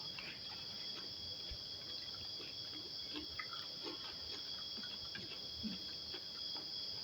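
Crickets chirring in a steady, unbroken high drone, with a few faint soft clicks and small eating noises scattered through it.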